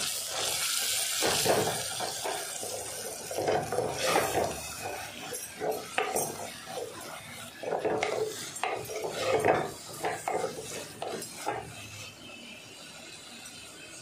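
Wooden spoon stirring and scraping a thick masala of shallots, garlic and chilli powder frying in oil in an earthenware clay pot, in irregular strokes that grow quieter near the end.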